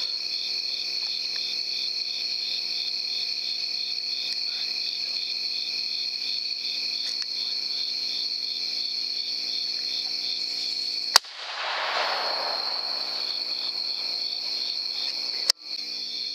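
Night insect chorus: a steady high trill with a regular pulsing chirp about three times a second. About eleven seconds in there is a sharp click followed by a second or so of rustling noise, and another sharp click near the end.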